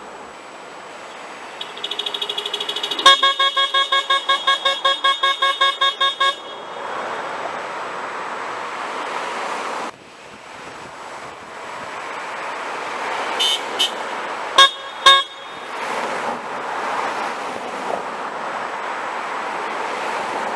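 Car horns honking over passing traffic. A horn is tapped in a fast run of short honks, about four a second, for several seconds. A couple of short beeps sound about two-thirds of the way through.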